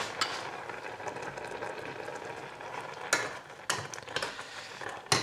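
Quinoa simmering in a pot of water and milk: a steady bubbling hiss. A spoon clicks sharply against the pot a few times, about three seconds in and again near the end.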